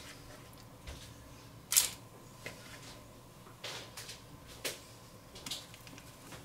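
About half a dozen light taps and rustles as battered potato slices are set down on a parchment-lined baking tray, with one sharper knock about two seconds in.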